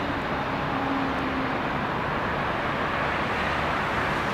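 Steady running noise of a yellow track maintenance railcar on the tracks, a constant rush with a faint low engine hum beneath it.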